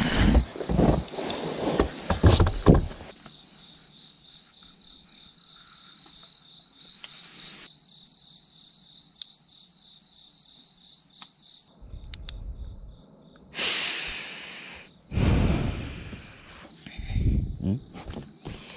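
Crickets chirping in a steady high trill with a pulsing note just beneath it. Rustling and handling noises cover the first few seconds and come back near the end, with two long rasping sweeps.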